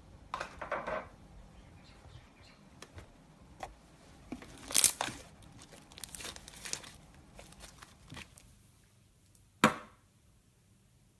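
Slime being squeezed and stretched by hand, making irregular wet crackles and pops. The loudest are a burst about five seconds in and a single sharp pop near the end.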